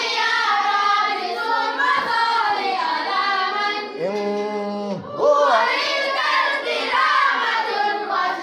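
A group of voices singing an Arabic madih, a devotional praise song for the Prophet, in unison, with long drawn-out melismatic phrases and a note held for about a second around four seconds in.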